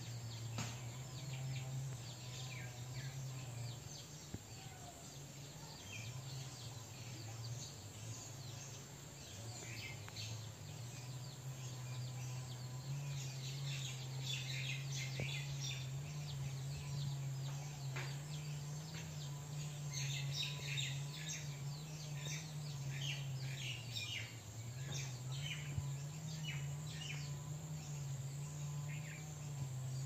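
Birds calling in the background: many short, high chirps, thickest through the middle and latter part, over a steady low hum that wavers slightly in pitch.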